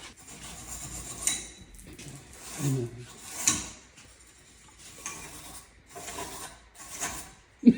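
Intermittent scraping and rubbing on metal brake parts as the caliper mating surfaces are cleaned, with a few light knocks and a sharp knock near the end.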